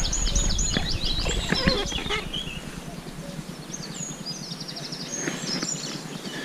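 Songbirds singing: quick runs of high chirping notes through the first couple of seconds and again about four seconds in, over a low rumble.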